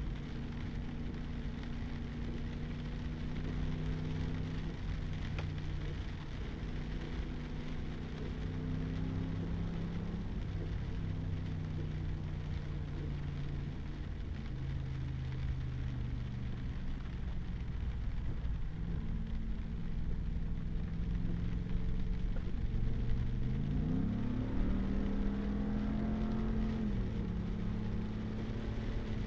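Pickup truck engine running while driving on a wet, muddy gravel road, heard inside the cab over a steady hiss of tyres and rain. The engine note shifts with speed, and late on it climbs quickly and settles at a higher pitch.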